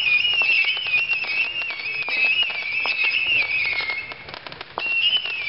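Giant Saturn missile battery firing: a steady stream of whistling rockets, the whistles wavering up and down, with many sharp pops throughout. It eases off briefly about four seconds in, then picks up again.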